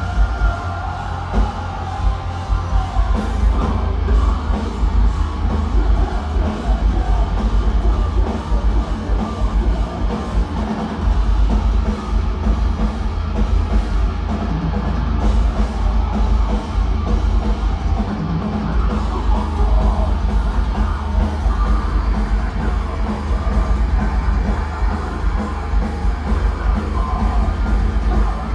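Metalcore band playing live at full volume: drum kit, heavy low end and yelled vocals.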